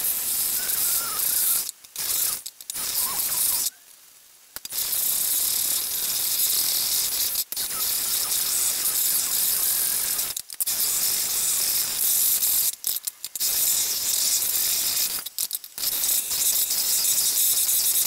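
Electric hand mixer running, its wire beaters whisking egg white and sugar in a stainless steel bowl toward stiff peaks. The steady motor whir cuts out briefly several times, the longest gap about four seconds in.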